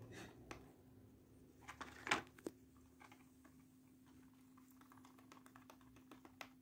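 Faint irregular clicks and light taps from a baby angora rabbit nibbling and nosing at a wooden chew stick and its cardboard box, with a louder brief rustle about two seconds in.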